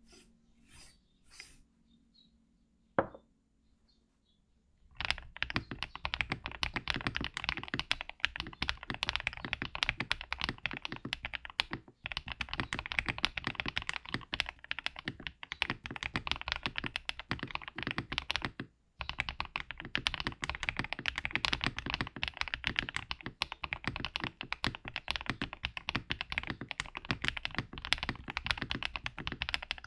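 Mechanical keyboard being typed on: an Akko Top 75 ACR with Akko Cream Yellow V3 linear switches. After a few faint clicks and one sharp click about three seconds in, fast continuous typing starts about five seconds in, with two brief pauses.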